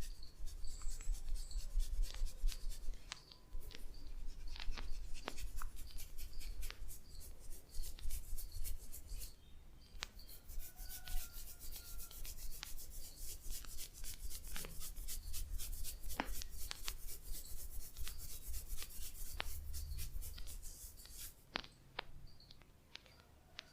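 Close-miked massage rubbing over skin and hair, a long run of quick rubbing strokes full of fine crackling ticks, thinning out near the end.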